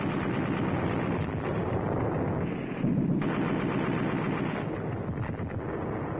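A continuous rapid rattle of machine-gun and rifle fire, battle sounds on the newsreel's sound track, with a heavier blast about three seconds in.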